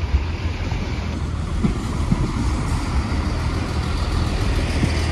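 Chiltern Railways Class 165 diesel multiple unit coming into the terminus platform, its underfloor diesel engines giving a steady low rumble.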